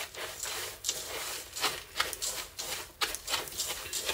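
A whisk stirring dry crushed vanilla wafer crumbs in a stainless steel bowl: quick, repeated scraping and rustling strokes, several a second.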